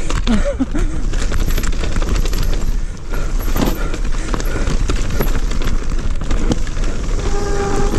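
Electric mountain bike rattling fast over a rough, stony forest trail: a continuous clatter of knocks from the bike and tyres, with heavy wind noise on the camera microphone. A steady whine sets in about seven seconds in.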